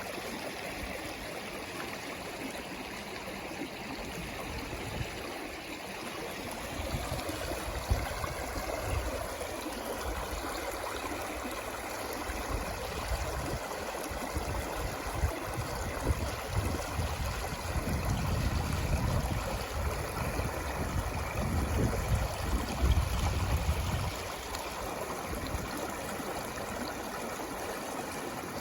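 Water flowing in a stream, a steady rush of water. A low, uneven rumble joins it about a quarter of the way in and drops away about three quarters of the way through.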